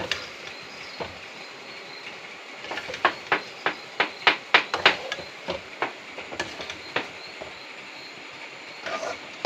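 Metal spoon knocking and scraping against a steel kadai while stirring a thick curry, with a quick run of sharp clinks in the middle, over a steady hiss.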